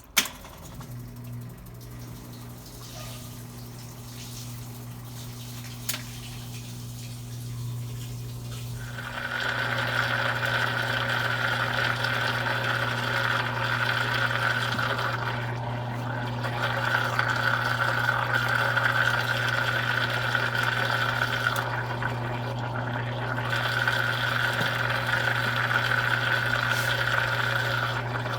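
Consul Cargo 8 kg washing machine filling with water. A click, then a steady low hum, with water rushing in that grows louder about nine seconds in and runs on steadily.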